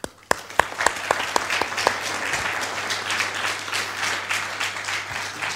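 Audience applauding: several loud, sharp claps close by in the first two seconds, within a steady dense clapping from many hands.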